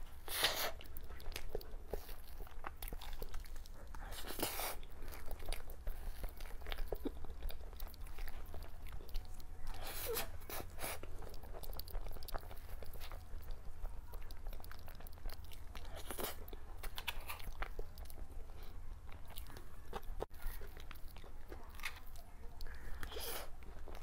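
A person eating cake close to the microphone: small wet bites and chewing, with a louder crunchy bite every few seconds, over a steady low hum.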